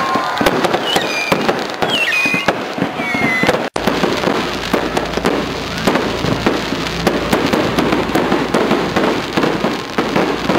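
Fireworks going off in a dense, rapid run of cracks and pops, with a few short whistling tones in the first few seconds. The sound drops out for an instant about four seconds in, then comes back as continuous crackling over a low rumble.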